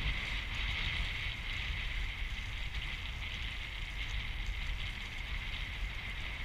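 Hobie 14 catamaran under sail: wind buffeting the microphone over a steady hiss of water rushing past the hulls.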